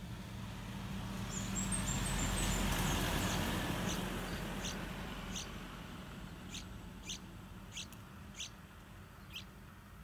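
Yellow-vented bulbul chick giving short, sharp, high-pitched begging calls, about eight of them spaced through the second half, while it is still hungry for food. About a second in comes a quick run of faint, very high twitters. A broad rush of noise swells and fades over the first half and is the loudest sound.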